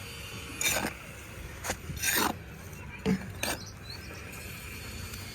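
Hands digging and rummaging through soil and dry potato plants: five or so short scraping, rustling strokes in the first few seconds.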